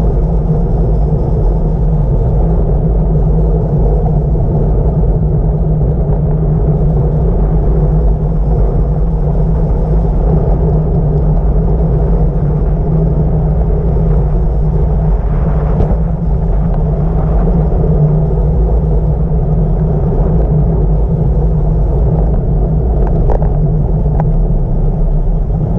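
Steady, heavy wind rush buffeting the microphone at descending speed, a deep, even rumble with no breaks.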